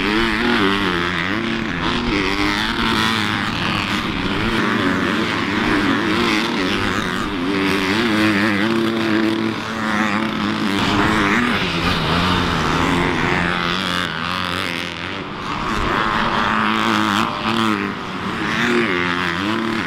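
Motocross bike engines revving, the pitch climbing and dropping over and over with throttle and gear changes.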